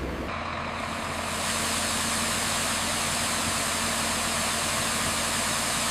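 Heavy diesel engine of road-construction machinery running steadily, with a strong even hiss over it.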